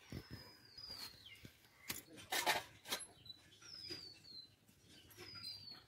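A bird calls several times with a short falling whistle. About two and a half seconds in comes a brief scraping hiss, the loudest sound here, as a match is struck to light a clay mud stove (chulha), with a few light clicks around it.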